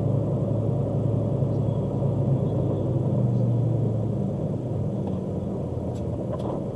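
A vehicle engine running steadily, a low even hum with road or drive noise.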